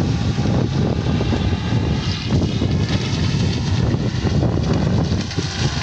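Wind buffeting the phone's microphone: a loud, steady, gusting rumble with hiss above it.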